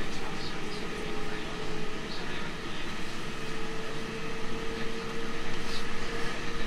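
Running sound of a JR Central 313 series 2500 subseries electric train: a steady rumble of the train under way, with a faint steady whine that grows stronger after about three seconds.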